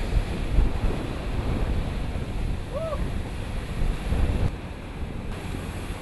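Wind rumbling on the microphone over the wash of ocean waves and surf, in uneven gusts. A brief rising-then-falling tone sounds about halfway.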